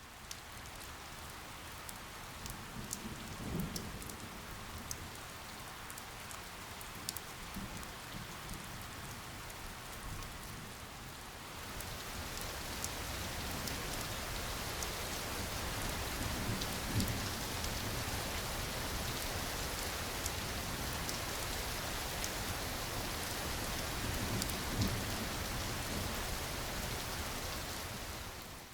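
Steady rain falling, with scattered sharp drop ticks. It gets heavier and louder about twelve seconds in, and a few soft low rumbles come and go.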